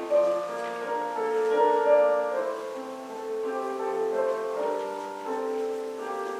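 Church music: held notes and chords played on a keyboard instrument, changing every half second or so.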